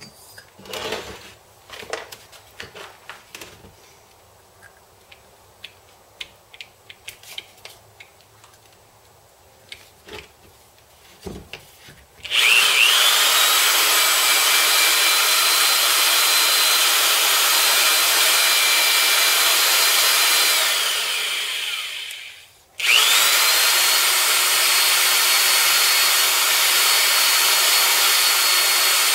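Scattered light clicks and taps of small metal parts being handled, then a corded electric drill spins up to a loud steady whine, runs about eight seconds, winds down and stops, and starts again. The drill is being run on a Honda CT110 cylinder head during a valve job.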